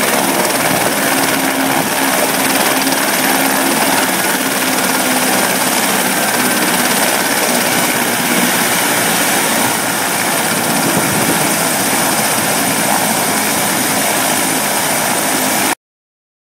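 Aerospatiale AS-350B helicopter running on the ground after landing: a steady turbine whine and rotor noise. The sound cuts off abruptly shortly before the end.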